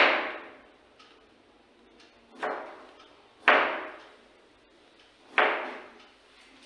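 Chef's knife chopping through a vegetable and knocking on a plastic cutting board: four separate sharp knocks a second or two apart, the second one softer, each trailing off briefly.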